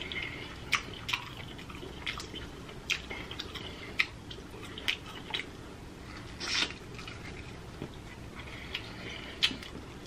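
Close-up eating sounds of a saucy seafood boil eaten by hand: scattered wet smacks, clicks and sucking noises from lips, fingers and food, with a longer wet sound about six and a half seconds in.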